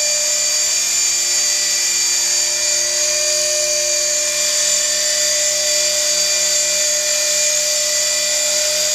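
EXI 450 electric RC helicopter hovering: the Helium 2210 brushless motor and its pinion driving the main gear give a steady high-pitched whine, with the rotor blades' hum beneath it.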